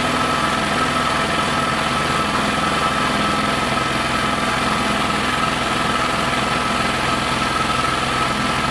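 1972 Elna Supermatic SU 62C sewing machine running continuously at a steady speed, its motor and needle mechanism stitching free-motion with the machine's feed not moving the fabric. The sound holds one steady pitch with a high hum throughout.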